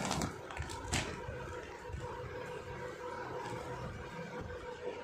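A plastic cover crinkling as a folded bedsheet is handled and pulled from it, with sharp crackles in the first second. Then softer rustling of cloth and plastic over a steady background hum.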